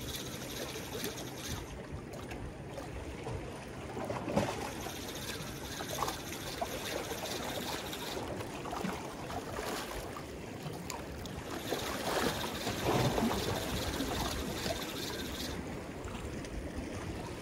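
Sea water lapping and sloshing against concrete breakwater blocks, a continuous wash that swells louder about four seconds in and again around twelve to fourteen seconds in.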